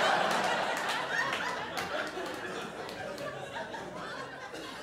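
Audience laughing, loudest at the start and dying away over a few seconds.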